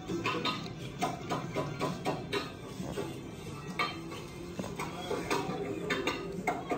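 Plates and cutlery clinking and knocking at a table, many small irregular clicks.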